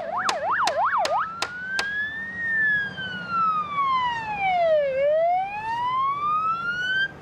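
Emergency vehicle siren, switching from a fast yelp to a slow wail that falls and rises once before cutting off near the end. A series of sharp clicks runs through the first two seconds.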